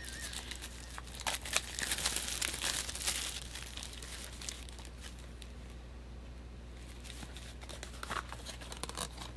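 Packaging being unwrapped by hand: crinkling and rustling with small clicks for the first three seconds or so, then only scattered faint handling clicks over a low steady hum.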